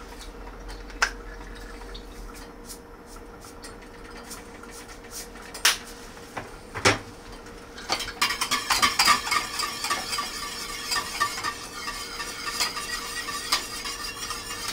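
Stirring gravy in a pot on the stove: a utensil clinks against the pot a few times, then from about eight seconds in it scrapes and clinks rapidly and steadily around the pot.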